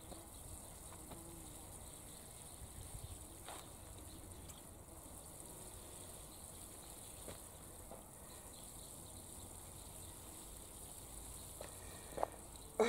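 Water sprinkling from a watering can's rose onto soil and seedlings, a soft steady hiss with a few faint clicks.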